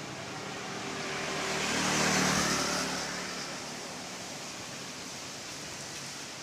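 Strong wind blowing in a steady rush, with a road vehicle's engine growing louder, passing about two seconds in, then fading away.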